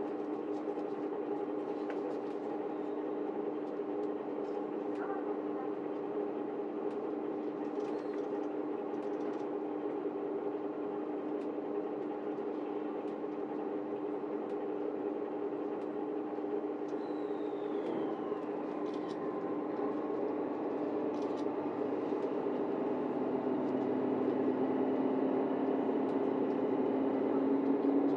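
Diesel engines of a JR Shikoku 2700 series limited express railcar, the Nanpu, running steadily at the platform, growing louder over the last several seconds as the train gets under way.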